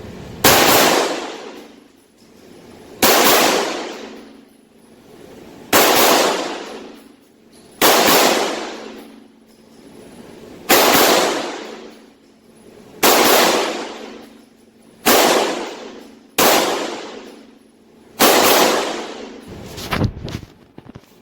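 Glock 34 Gen 5 9mm pistol firing strings of rapid shots, about nine loud reports two to three seconds apart, each ringing out in a long echoing tail in the indoor range. A few small clicks follow near the end.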